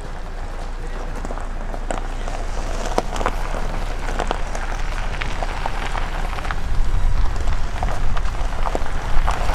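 Car and boat trailer tyres crunching slowly over gravel while backing down a launch ramp, a steady crackle of small stones. It grows louder toward the end as the vehicle comes closer, with a low rumble underneath.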